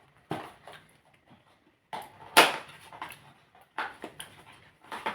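Parcel packaging being pulled and torn open by hand, in several short rustling rips, the loudest about two and a half seconds in.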